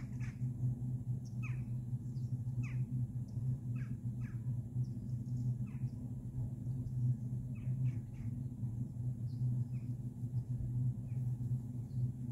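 Birds calling: short, falling chirps every second or so, some in quick pairs, over a steady low rumble.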